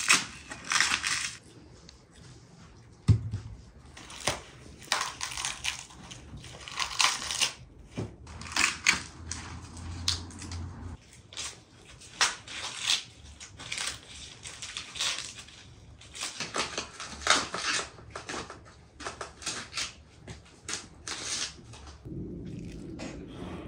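Fresh corn being husked by hand: repeated dry ripping and rustling as the green husks are torn and pulled off the ears, with an occasional knock.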